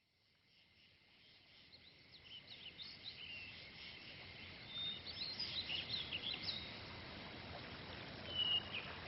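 Birds chirping: many short rising and falling calls and a couple of held whistles over a faint steady hiss, fading in about two seconds in.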